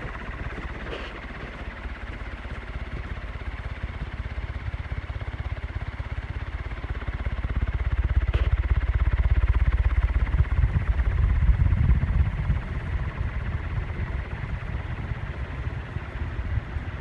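Emerson Stratojet ceiling fan running on high, its strong downdraft rushing and buffeting the microphone. The low rush swells in the middle and then eases, over a faint steady motor whine.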